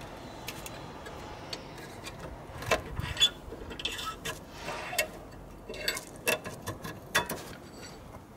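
Old brake pads being pried out of a rusty Volvo brake caliper with a screwdriver: irregular sharp metal clicks and taps, with short scrapes about four and five seconds in.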